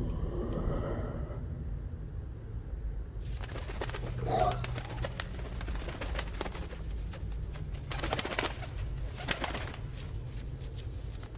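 A monster's low, throaty cooing growl over a steady low rumble, with a short warbling call about four and a half seconds in and many sharp clicks.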